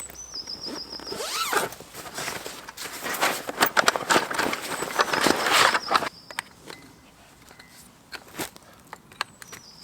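A zip being pulled along with rustling handling of gear, loudest in the first six seconds and then dropping to scattered light clicks and taps.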